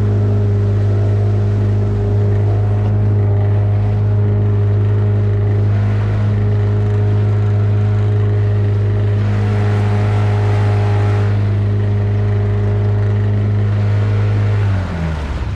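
Outboard motor of a small aluminium tinny running at a steady throttle with an even drone. Near the end it drops in pitch and level as it is throttled back.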